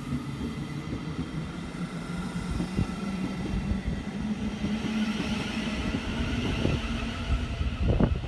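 Class 707 electric multiple unit pulling away from the platform: a steady low electric hum with a fainter higher whine over the rumble of wheels on rail. A few sharp thumps come near the end.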